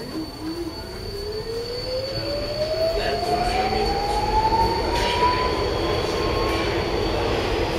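Alstom Metropolis train on Budapest's M4 metro pulling away from a station, heard from inside the carriage. The traction motors' whine rises smoothly in pitch as the train accelerates, while the running rumble grows louder.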